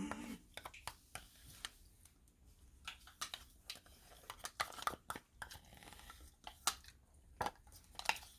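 Scattered small clicks and scrapes of a spoon working in a plastic pudding cup while eating from it, at irregular intervals.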